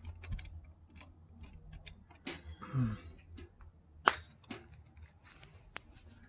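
Scattered small clicks and taps at irregular intervals from handling RV door-lock hardware and screws, the sharpest about four seconds in.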